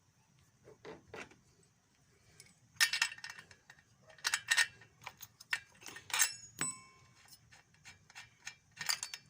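Metal clinking and scraping of a wrench on a chainsaw's spark plug as the plug is loosened and taken out, in several short bursts of clicks, with one short metallic ring a little past the middle.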